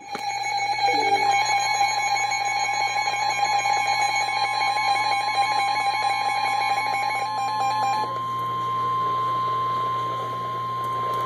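NOAA Weather Radio warning alarm: a steady single tone near 1 kHz (the 1050 Hz alert tone) starts about a second in and cuts off at the end. For the first eight seconds or so it is overlaid by a buzzy, rapidly pulsing alarm beep. It signals an emergency alert, here a severe thunderstorm warning.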